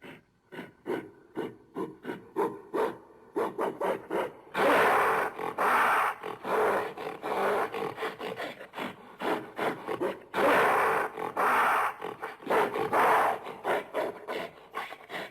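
Gorilla calls: a run of short, rhythmic grunts about three a second, then long, loud calls about four and a half seconds in and again about ten seconds in, with more choppy grunting between and after.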